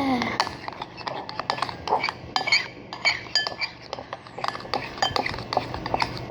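A utensil clinking against a hard bowl in quick, irregular strokes, as when stirring slime ingredients.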